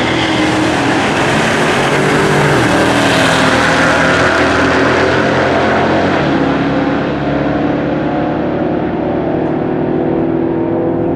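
A nitrous-fed automatic Ford Mach 1 Mustang and a Plymouth at full throttle on a drag strip. Engine pitch climbs and drops back at each upshift, twice in the first six seconds, and the sound eases a little after about seven seconds.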